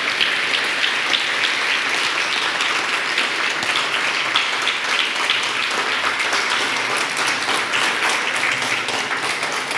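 Audience applauding: a dense run of many hands clapping that thins slightly toward the end.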